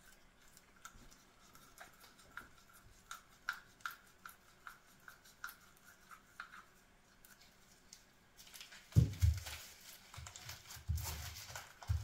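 Gloved hands handling a steel clamping block, giving faint small clicks and squeaks. From about eight seconds in, loud crinkling and rustling of brown wrapping paper comes in as a part is picked up for unwrapping, with a few dull bumps.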